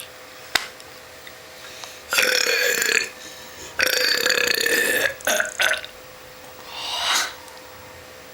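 A woman burping loudly twice, each belch lasting about a second, followed by a few shorter sounds.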